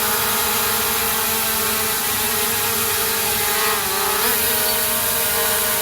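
SJRC F11S 4K Pro quadcopter hovering, its brushless motors and propellers giving a steady whine. About four seconds in, the motors slow briefly and speed back up, so the pitch dips and rises again.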